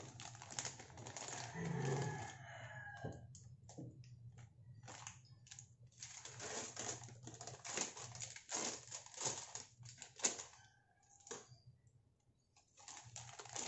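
Plastic instant-noodle packet crinkling and rustling in a run of short, irregular crackles as the dried noodle block is taken out and set in a pan, over a low steady hum. The crackling stops about eleven seconds in.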